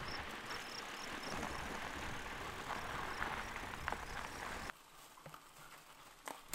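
Bicycle tyres rolling over a dirt trail, a steady crunching rumble with light rattles, with a few faint short high chirps in the first second or so. It cuts off abruptly about three-quarters through, leaving near quiet with a few faint clicks.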